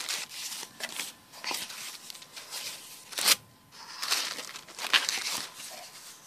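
Packaging and paper items being handled: irregular crinkling and rustling with a few sharp crackles.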